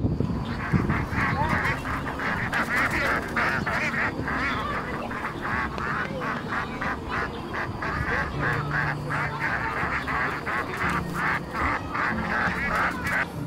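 A flock of ducks quacking, many calls overlapping without a break.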